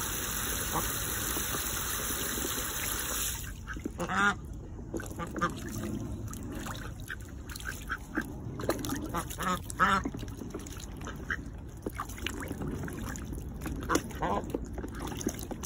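Hose spray hissing onto the water in a plastic tub, cutting off suddenly about three seconds in. Then domestic ducks give short quacks now and then, with small splashes as they bathe and dabble in the tub.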